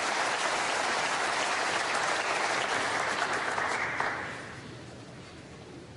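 Snooker arena audience applauding, the clapping dying away about four seconds in.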